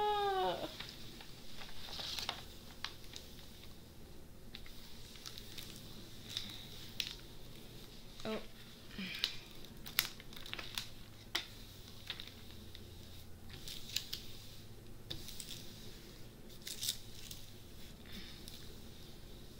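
Diamond painting canvas and its backing sheet crinkling and rustling as they are flipped over and rubbed and pressed flat by hand, with scattered light taps and rubs, to work out air bubbles. A brief falling voice right at the start.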